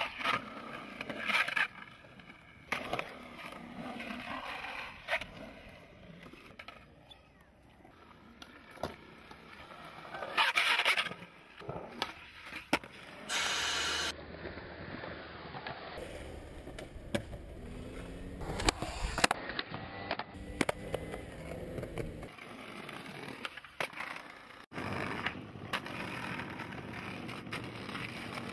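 Skateboard wheels rolling on concrete and paving, with repeated sharp clacks of the board popping and landing during tricks. The sound changes abruptly at several points where separate clips are joined.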